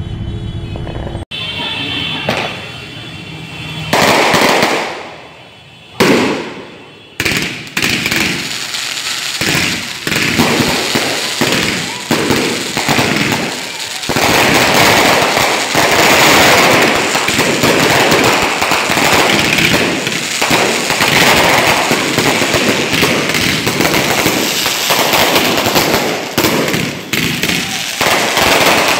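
Fireworks and firecrackers going off: a few separate loud bangs, then from about seven seconds in a long, dense crackle of rapid reports like a string of firecrackers. A second of music plays at the start before cutting off.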